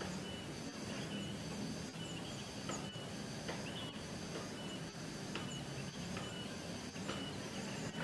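Outdoor ambience: a high-pitched chirping repeated at an even pace, a little more than once a second, with a few short rising chirps and a low hum underneath.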